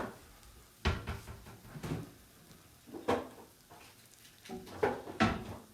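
Kitchen handling noises: about six short knocks and clicks spread over several seconds, like cupboard doors, drawers and containers being handled.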